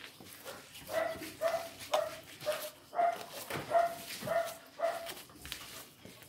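A dog barking repeatedly, about eight short barks at roughly two a second, starting about a second in and stopping near the end.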